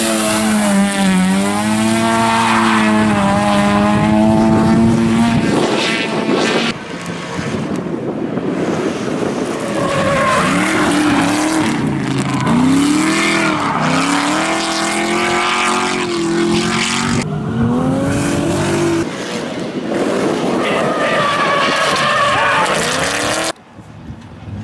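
Drift cars sliding through a corner at full throttle: engines revving, their pitch rising and falling again and again as the throttle is worked, over tyre squeal and skidding. The sound drops off suddenly near the end.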